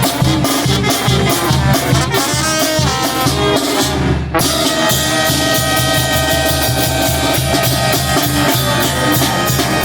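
Oaxacan brass band playing: trumpets and trombones over drums, with a brief break about four seconds in, then held brass notes.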